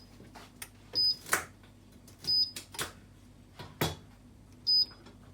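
Control panel of a Gridinlux slow juicer beeping as its buttons are pressed: three short, identical high beeps about a second or more apart. Several sharp clicks and knocks fall between them.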